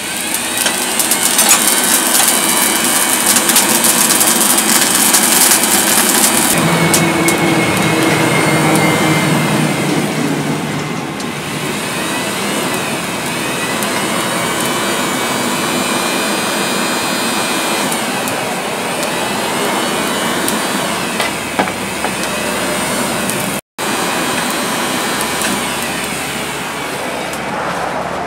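Air blower forcing air into a charcoal forge: a steady motor whine over rushing air, with dense crackling over the first six seconds or so.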